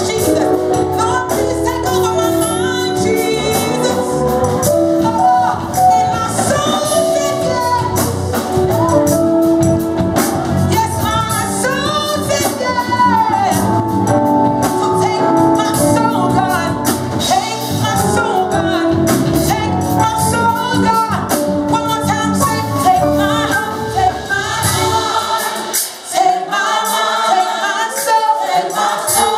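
Gospel song: a choir and women's voices singing over a full band with a heavy bass. About 25 seconds in, the bass drops out and the voices carry on nearly alone.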